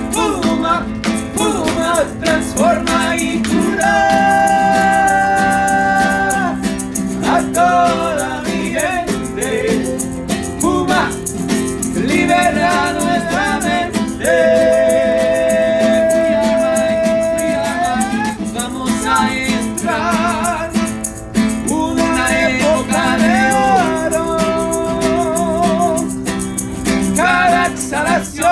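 Two men singing to a strummed acoustic guitar while a wooden maraca is shaken in a steady rhythm, the voice holding long notes twice, around four seconds in and again around fourteen seconds in.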